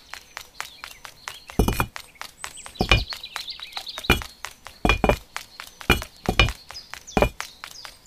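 Stop-motion sound effects: a quick, even run of light ticks like tiny footsteps, then about seven louder sharp clacks as miniature bricks are carried and set down, with faint high chirping.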